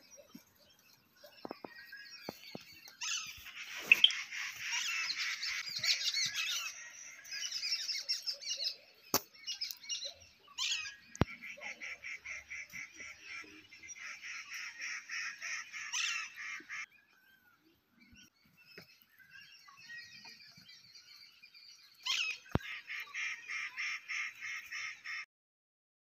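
Wild birds calling at dawn in a forest, with several calls overlapping and long runs of rapid, evenly repeated notes. There are a few sharp clicks, and the sound cuts off suddenly near the end.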